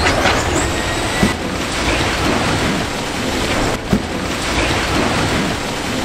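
Berkut 8x8 all-terrain vehicle pushing through a thicket of birch saplings: a dense, steady crackle of branches snapping and scraping against it as it drives, with two sharper cracks about a second and about four seconds in.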